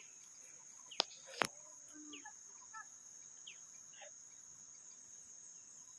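Steady high-pitched insect drone of forest crickets, with two sharp clicks close together about a second in and a few faint chirps.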